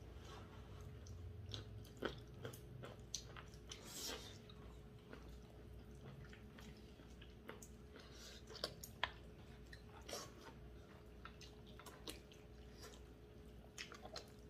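Quiet eating sounds: chewing and slurping of glass noodles and braised chicken, with scattered small sharp clicks of chopsticks against bowls and dishes.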